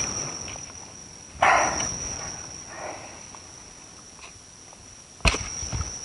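Insects trilling steadily at a high pitch while a shovel works the ground. There is a short scrape about a second and a half in, and a sharp knock of the tool just after five seconds.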